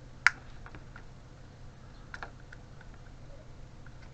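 Small plastic clicks as the retaining clips of a car electric window switch housing are prised loose: one sharp click about a quarter second in, then a few fainter clicks around two seconds in and near the end.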